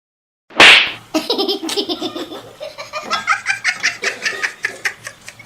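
A sudden loud burst, then a long run of rapid, breathy laughter that goes on for several seconds.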